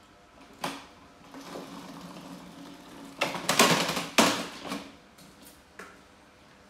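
Hard plastic ride-on swing car rattling as its small wheels roll over a tiled floor, then the toy tipping over and clattering onto the tiles about three seconds in, with a second loud knock a second later.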